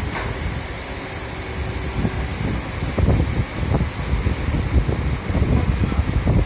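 Vehicle engine running with a low rumble that grows louder and more uneven from about three seconds in.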